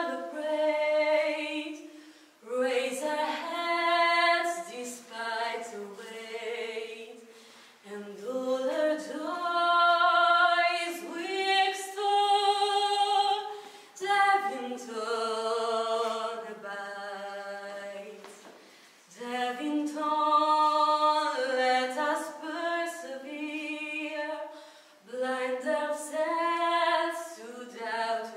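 A cappella hymn sung by a female voice with a choir, in slow, sustained phrases separated by short breaks.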